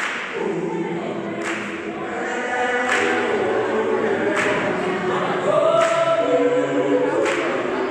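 A choir of men and women singing together in harmony, with a sharp percussive hit keeping time about every second and a half.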